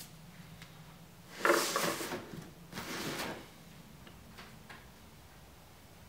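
Two scraping, sliding sounds of something moving against wood, about a second apart, followed by two light taps.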